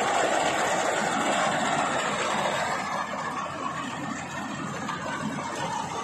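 Rice combine harvester running steadily as it cuts through standing rice, its engine and machinery making a continuous mechanical drone. It eases off a little after about three seconds.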